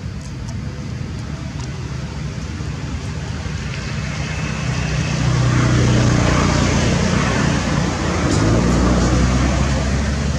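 Motor vehicle engine rumble, like passing traffic, growing louder about halfway through and holding steady.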